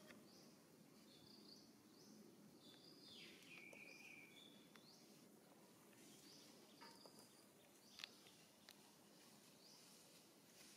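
Near silence: faint outdoor ambience with a few faint, high, short chirps scattered through it and a small sharp click about eight seconds in.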